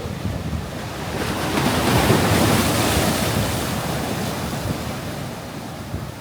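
Ocean surf: a wave breaks and washes in, swelling to its loudest about two seconds in and then slowly fading, with wind buffeting the microphone.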